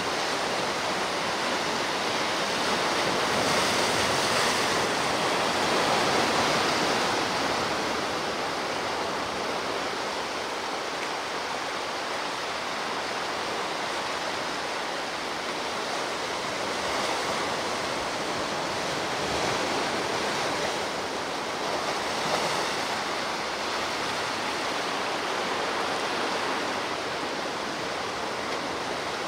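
Sea waves breaking and washing on the shore, a steady rushing surf that swells a little louder a few seconds in and again later on.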